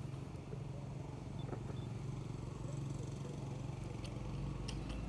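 A steady low engine hum, with a few short, light clicks near the end.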